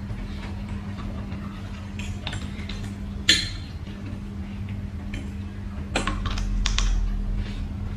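A metal fork clinking and scraping on a ceramic plate of noodles, in scattered light clicks. There is a sharp ringing clink about three seconds in and a few more around six seconds, over a steady low hum.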